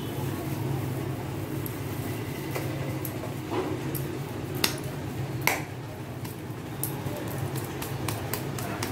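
Hands patting and shaping a ball of soft ragi-flour dough, with a few sharp slaps and light clicks, over a steady low hum.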